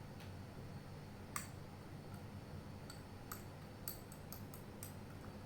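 Scattered faint clicks and taps as small slime-making supplies are handled and set down, a single one about a second in and a quick cluster near the end, over a faint steady hum.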